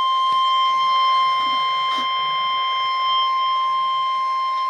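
Weather radio warning alarm tone: a single steady, high-pitched electronic tone held without a break. It is the attention signal that comes ahead of a broadcast severe weather warning.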